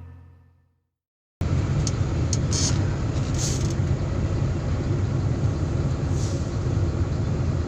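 Music fades out into a second of silence, then a heavy-equipment diesel engine comes in, running steadily with a low rumble and a few brief hisses near the start.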